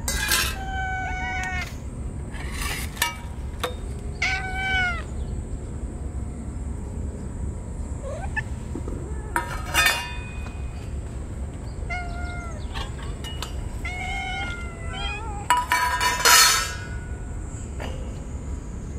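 Several stray cats meowing again and again at feeding time, short calls overlapping, some rising and falling in pitch. Two louder short noises about ten seconds in and near the end stand out.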